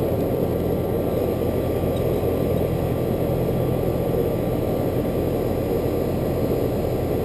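Air-conditioning condensing unit running steadily: a constant compressor hum under an even rushing noise. The compressor has just been brought up to speed with the extra starting torque of a hard-start kit.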